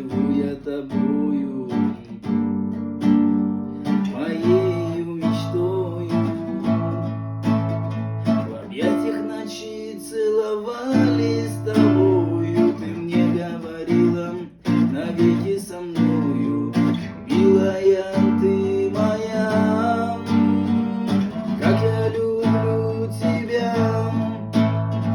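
Acoustic guitar playing the song instrumentally: strummed chords with a melody line moving above them.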